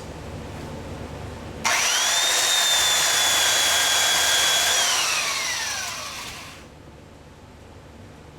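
A small high-speed power sander starts abruptly and whines at a steady high pitch for about three seconds while dressing an exhaust manifold flange, then spins down with a falling pitch once it is let off.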